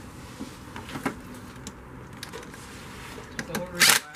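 Light clicks and handling noise from hands and a cordless drill/driver working on the cold air intake parts. Near the end come a few loud, short brushing and scraping noises close to the microphone.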